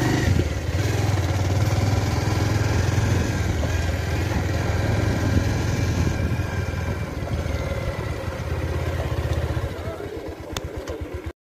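Motorcycle engine running steadily, with road and wind noise. About ten seconds in the steady running gives way to a slower, uneven putter, then the sound cuts off abruptly.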